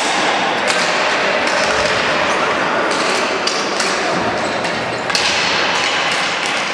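Ball hockey play: a few sharp knocks of sticks and ball on the concrete floor and boards, over a steady echoing din in the hall.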